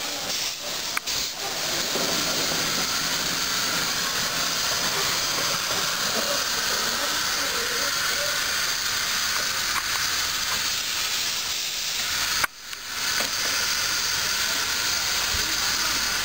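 Small minimum-gauge steam locomotive standing with steam hissing steadily from the top of its boiler. The hiss cuts out for a moment about twelve seconds in, then carries on.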